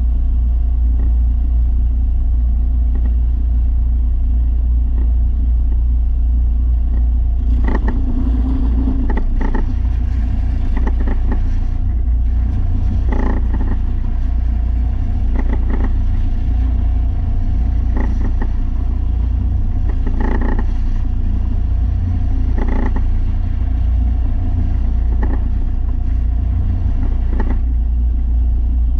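Belt sander with a 300-grit belt running steadily. From about a quarter of the way in, a short sharper sound comes about every two and a half seconds.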